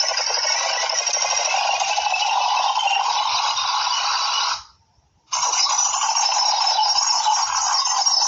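Dense, very rapid clicking, like a fast rattle, that stops for about half a second a little past the middle and then resumes.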